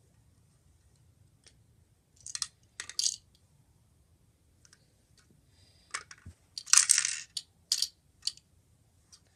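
Lego City 60118 garbage truck toy being handled: short plastic clicks and clatters as its front-loader arms lift the dumpster over the cab, with the loudest rattle about seven seconds in.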